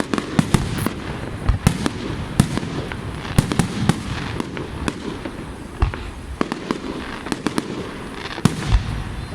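Fireworks display: an irregular string of sharp bangs and crackling pops, several a second, over a continuous rumble of further bursts.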